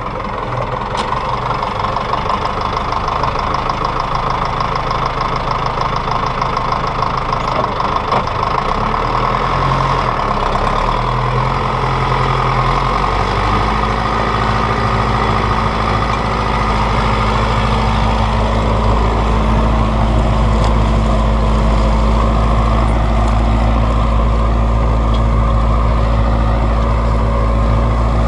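Farm tractor's diesel engine running steadily under load while pulling a sowing implement across a field. About halfway through, the sound settles into a heavier, steadier drone.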